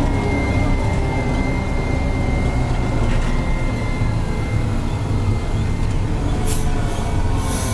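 Farm tractor running steadily under way, a deep engine rumble with a thin steady whine above it. A couple of brief hissing sounds come near the end.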